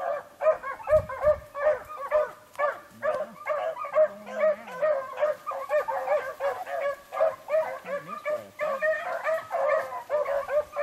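A pack of beagles baying while running a rabbit track, several voices overlapping in quick, repeated calls without a break. Steady pack baying like this means the hounds are on the rabbit's scent.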